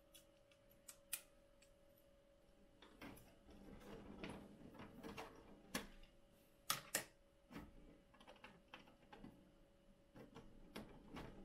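Light clicks, taps and rustling as a 3D-printed plastic filter grill is handled and pressed into place against a 3D printer's enclosure panel, with two sharper clicks about two thirds of the way in. A faint steady hum runs underneath.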